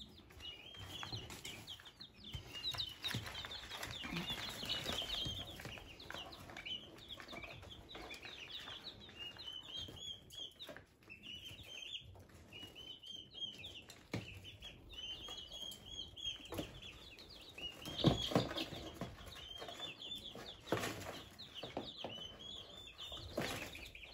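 A brood of five-day-old chicks peeping without pause, many short high cheeps overlapping. A couple of louder knocks or rustles come about three-quarters of the way through.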